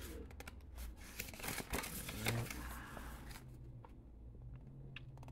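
A folded paper leaflet being unfolded and handled: crisp paper rustles and flicks over the first three seconds or so, then only a couple of faint ticks.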